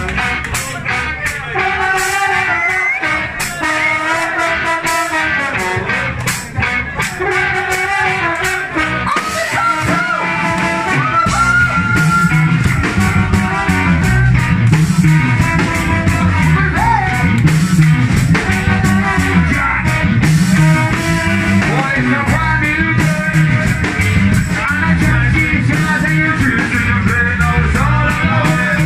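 Ska-punk band playing live: trombone and saxophone lines over electric guitar, with bass and drums coming in heavily about eleven seconds in, and vocals.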